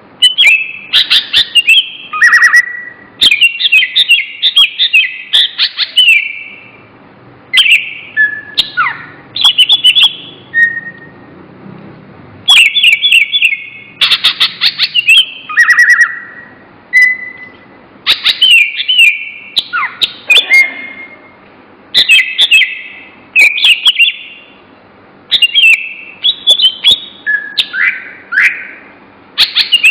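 A songbird singing loudly and close: bursts of rapid chirps and whistled notes, some sliding downward in pitch, about a second or two long, repeated every couple of seconds with short pauses between.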